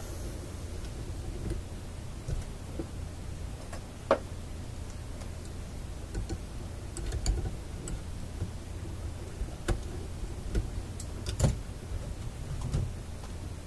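Scattered small clicks and taps of pliers and wire strippers handling wires on a tube amplifier chassis, irregular and a second or more apart, the sharpest about four seconds in and near the end. A steady low hum sits underneath.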